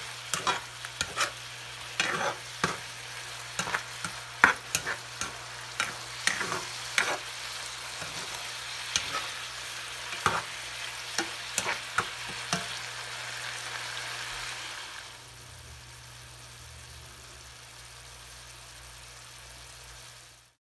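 Plastic spoon stirring eggplant and tofu in a nonstick skillet, with sharp scrapes and taps against the pan over the sizzle of the simmering sauce. The taps stop a little past halfway, and a few seconds later the sizzle drops to a faint steady hiss.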